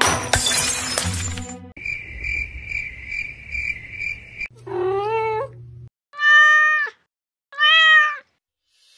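A flocked artificial Christmas tree crashing onto a wooden floor, its ornaments scattering, a loud noisy burst over the first second or two. Then a high chirping that pulses about twice a second for a few seconds, followed by three cat meows: one rising, then two loud, long ones.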